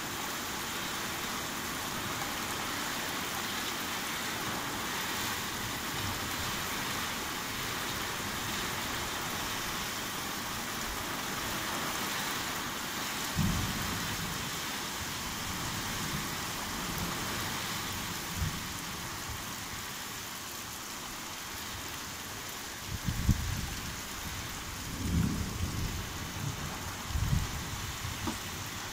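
Heavy thunderstorm rain hissing steadily on a caravan. From about halfway, short low rumbles and thumps break in, several of them close together in the last few seconds.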